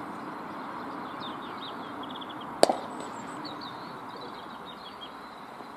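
Cricket bat striking the ball once, a single sharp crack about two and a half seconds in. Birds chirp in short bursts around it.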